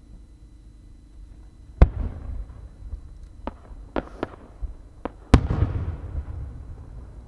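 Aerial firework shells going off: a sharp boom about two seconds in, a few smaller cracks, then a second big boom a little past five seconds, each boom trailing off in a low rumbling echo.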